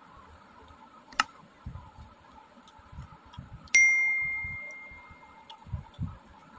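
Soft chewing and eating sounds by hand, with a sharp click about a second in and, a little past halfway, a single bright metallic ding that rings out and fades over about a second and a half.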